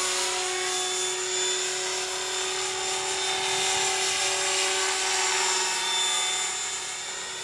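Battery-powered radio-controlled model helicopter in flight: a steady, high-pitched whine from its motor and spinning rotors, fading slightly near the end.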